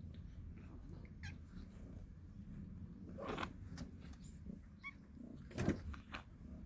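Kittens stirring, with a faint, brief mew about five seconds in. Two short rustling knocks, the louder one near the end, sound over a low steady rumble.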